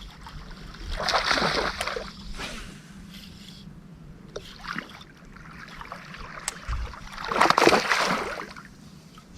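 Water splashing twice: once about a second in and again, louder, about seven and a half seconds in.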